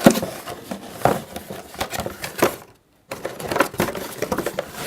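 Mouse packaging crackling and rustling in quick, irregular clicks as the mouse's cable is pulled out through it. The sound drops out completely for a moment a little before the middle.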